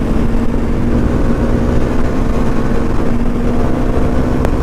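Bajaj Dominar 250's single-cylinder engine running steadily at a cruising speed of about 90 km/h, with wind rushing over the microphone.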